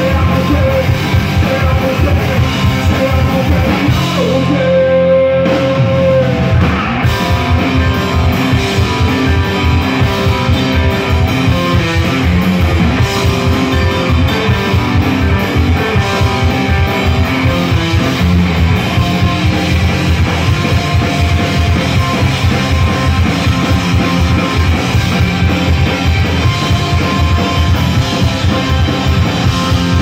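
Live rock band playing through a PA, with electric guitars, bass, drum kit and singing. About four seconds in the band briefly thins to a single held note, then the full band comes back in.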